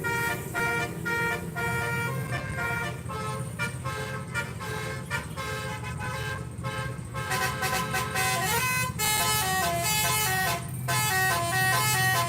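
Indonesian bus 'telolet' multi-tone horn playing a quick melody of stepped notes that jump up and down in pitch, with a brief break near the end before it starts again. A bus engine hums steadily underneath.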